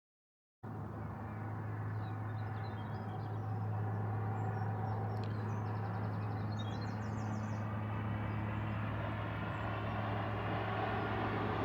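Diesel train approaching: a steady low engine hum that grows slowly louder and swells near the end, with birds chirping faintly in the first few seconds. The sound cuts in abruptly about half a second in.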